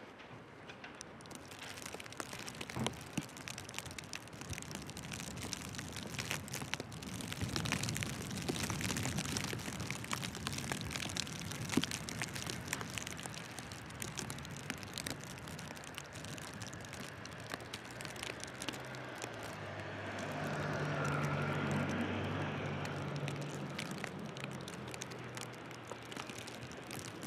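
Footsteps crunching in fresh snow over a steady hiss of wind. About three-quarters of the way through, a car drives past in the snow: its low engine hum and tyre noise swell, then fade.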